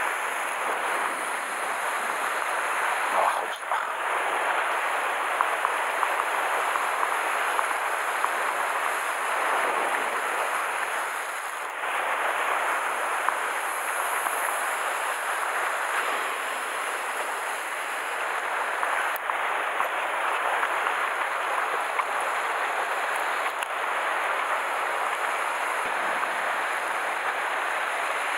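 Sea surf washing in and out around shore rocks: a steady rushing wash of water.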